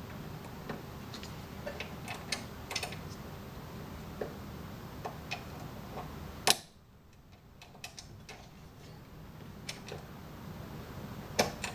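Scattered light clicks and small knocks from hands working a syringe pump's jammed clasp. A louder click comes about six and a half seconds in, after which the low background hum drops away, and a few more sharp clicks follow near the end.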